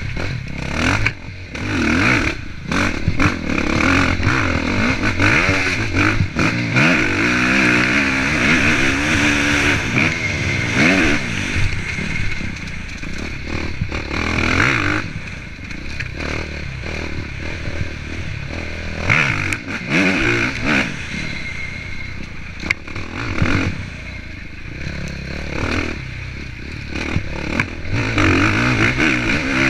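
Dirt bike engine revving hard and backing off again and again as it is ridden through corners and straights, its pitch climbing and dropping repeatedly. Frequent sharp knocks and clatter from the bike bouncing over rough ground run through it.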